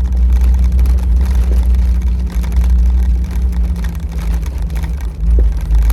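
Jeep Wrangler TJ climbing a rough dirt trail, heard from inside the cab: a steady, loud low engine and drivetrain rumble with frequent small knocks and rattles.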